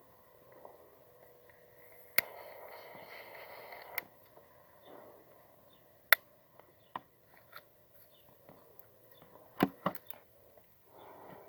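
Close handling noises: a sharp click followed by a steady hiss for almost two seconds, then scattered sharp clicks and a short breathy rush near the end.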